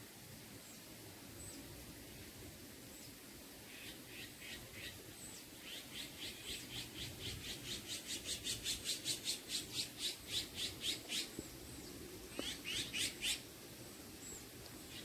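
A bird calling a long series of short, high chirps, about three or four a second, building louder from about four seconds in and breaking off near eleven seconds, then a brief burst of a few more a little later. Fainter high calls from another bird sound throughout.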